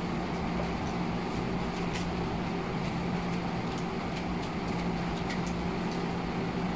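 Steady room hum and hiss with a low drone, and a few faint small clicks from handling a microphone plug and cable.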